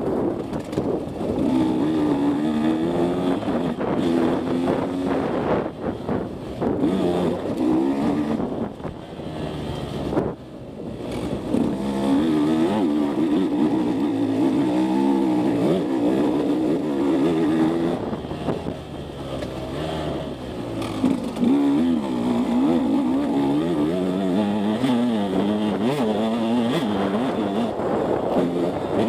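A KTM 150 SX two-stroke dirt bike engine under hard throttle, its pitch rising and falling over and over as it revs out. The throttle is rolled off briefly about ten seconds in and again near twenty seconds.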